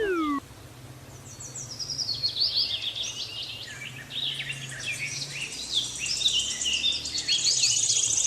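Small birds chirping and twittering, many quick high calls overlapping in a busy chorus.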